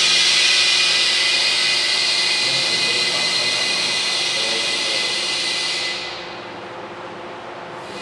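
Loud steady hiss of compressed air, with a whistling tone in it, from the pneumatic debris cannon's air system. It runs for about six seconds and dies down, then a shorter burst comes near the end. No impact is heard.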